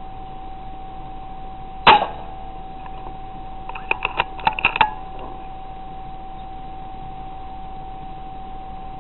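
A single rifle shot, one sharp crack about two seconds in. About two seconds later comes a quick run of clicks. A steady high thin tone runs throughout.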